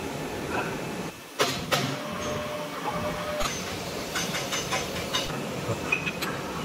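Steady workshop din with scattered sharp metallic clinks and knocks from steel tools and separator bowl parts being handled while a disc separator bowl is dismantled.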